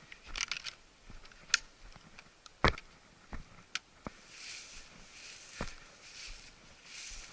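Footsteps of a hunter walking over stony ground into grass. There are scattered sharp clicks and knocks, the loudest about two and a half seconds in. From about halfway there is a soft swishing that repeats about every two-thirds of a second, one stride after another.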